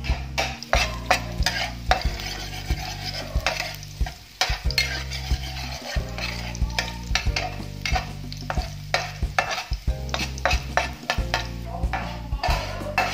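A spatula stirring chopped garlic in hot oil in a frying pan: irregular scrapes and sharp taps of the spatula against the pan over the sizzle of frying, with a steady low hum underneath.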